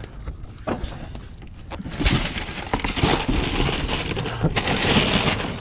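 Plastic bags and cardboard rustling and crinkling as trash is shifted in a dumpster: a few sharp clicks at first, then dense crackling from about two seconds in.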